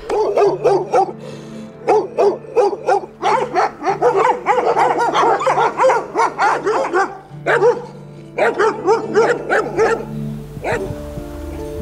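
Several dogs barking rapidly and over one another, with a short lull about seven seconds in, then stopping about ten seconds in.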